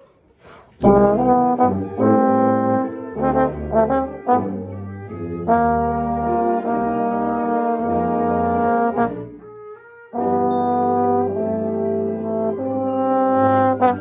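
A concert band playing, heard from inside the trombone section, with a trombone close and loud over the ensemble's sustained brass chords and a high percussion part ticking in steady time. The band comes in about a second in, breaks off briefly near nine seconds and comes back in about ten seconds in.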